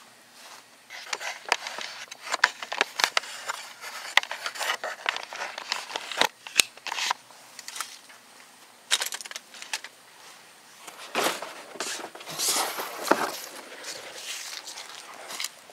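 The old headliner board of a 1986 Ford F-150 is handled and worked out of the cab. It scrapes, crinkles and knocks against the cab and door frame, with many sharp clicks in the first half and longer scraping rustles near the end.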